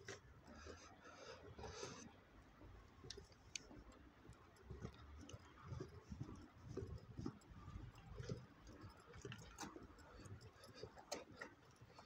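Faint, irregular footsteps on stone paving, with scattered small clicks.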